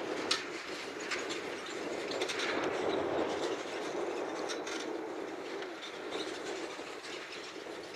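John Deere 7280R tractor working steadily under the load of an eight-furrow Kverneland plough, with a few sharp clanks and rattles over the engine's steady running.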